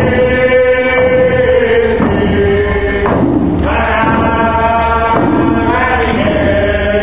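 Traditional Nisga'a drum song: a group of singers chanting long held notes together over a steady beat on hand-held frame drums. The singing breaks off briefly about three seconds in, then resumes.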